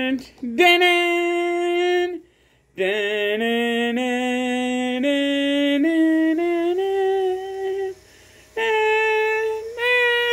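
A voice humming a slow, wordless tune in long held notes that step up and down in pitch, breaking off twice for breath.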